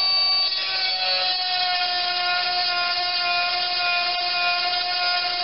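12-volt electric chainsaw sharpener running with a steady high whine while its grinding wheel works a chain tooth; the pitch shifts slightly about a second in.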